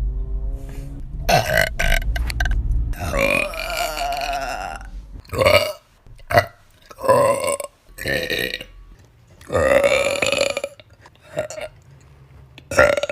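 A woman burping over and over: about ten burps, most of them short, with a long drawn-out one of about two seconds about three seconds in and another of about a second near the ten-second mark.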